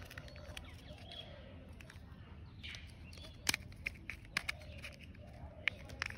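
Plastic toy excavator parts handled and snapped together, with a few sharp clicks in the second half as the yellow body is pressed onto the tracked chassis. Birds chirp faintly in the background.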